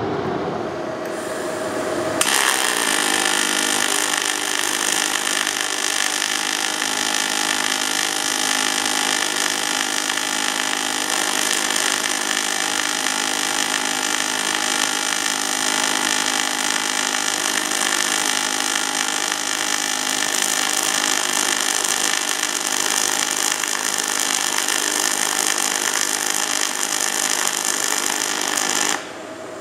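AC MIG welding arc on aluminum, from a Lincoln Power Wave S350 feeding 3/64-inch 4043 wire in straight argon. The arc strikes about two seconds in and burns steadily as a loud hiss with a steady hum of several tones through it, then cuts off just before the end.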